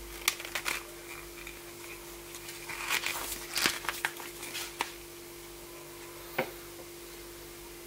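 BlenderBottle GoStak clear plastic storage containers being handled: a scatter of sharp plastic clicks and short rustles, busiest in the middle, with one last click near the end. A steady hum runs underneath.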